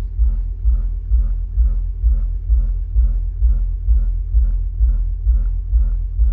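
A pair of DB Drive WDX 8-inch subwoofers in a ported box plays loud deep bass with a steady beat of about two pulses a second. The subwoofers are being tested as their amplifier is set after installation.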